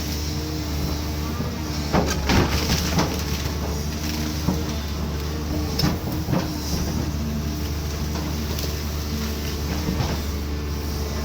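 Caterpillar 320D2 excavator's diesel engine running steadily, with a cluster of sharp knocks and cracks about two to three seconds in and again around six seconds in.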